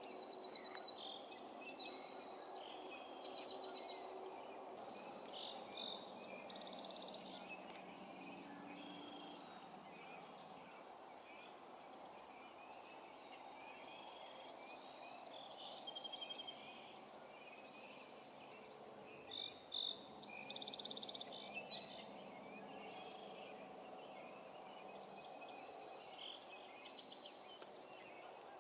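Songbirds singing and calling at dawn, several birds overlapping, with a louder trilled call about a second in and again about twenty seconds in, over a steady faint background hum.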